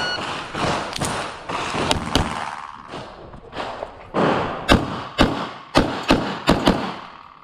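Handgun shots during a practical-shooting course of fire: about ten sharp reports, a few spaced out at first, then a quicker string of pairs in the second half, each with a short echo.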